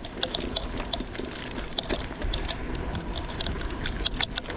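Mountain bike being ridden over a rough track: irregular clicks and rattles over a low rumble.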